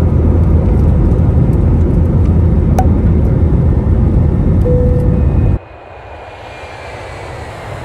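Loud, steady jet engine and cabin noise inside an airliner beside its turbofan engine, with a short tone near the end. About five and a half seconds in it cuts off suddenly to soft background music.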